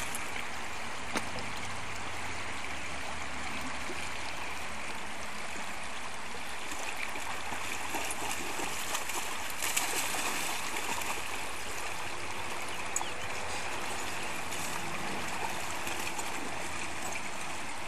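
Shallow rocky river running steadily, with a few small splashes from a dog wading through it.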